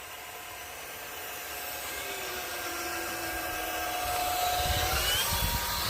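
Small electric RC car motor whining steadily and growing louder, its pitch rising near the end, with a low rumble joining in about the last second.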